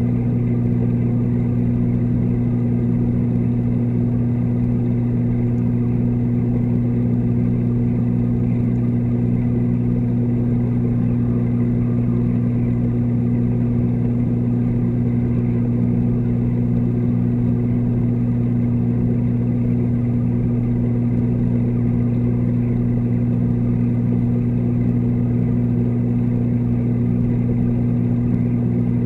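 Steady low hum of a reef aquarium's water pumps, heard underwater through the submerged camera.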